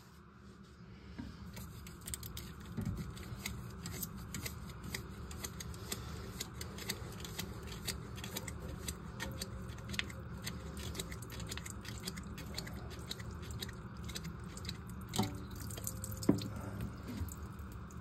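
Plastic coupling nut of a toilet's water supply line being unscrewed by hand from the fill-valve shank under the tank: a long run of small clicks and creaks, with two louder knocks near the end.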